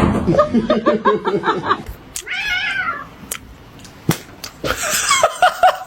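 A cat meowing: a quick run of short calls, then one longer arching meow about two seconds in, and another run of short calls near the end, with a sharp click in between.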